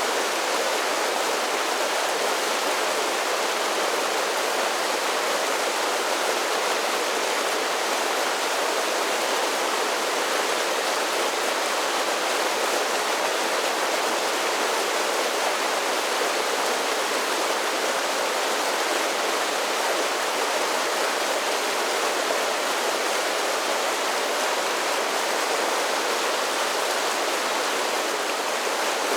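Mountain creek water rushing steadily over a series of small falls, a constant even rush with no breaks.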